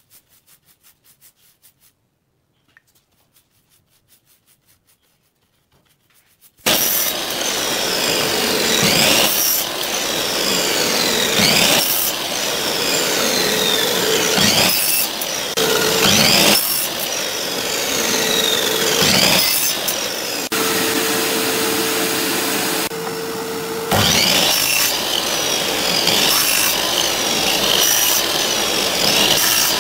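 Wood being sawn: after a few nearly quiet seconds of faint brush strokes, loud sawing starts suddenly about six and a half seconds in and runs on steadily, with a repeating swish every couple of seconds.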